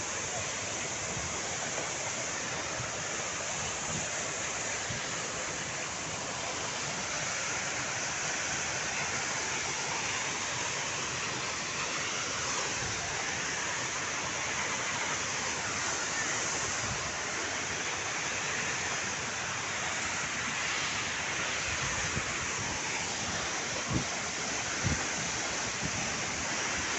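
Waterfall: a steady, even rush of falling water, with a couple of soft knocks near the end.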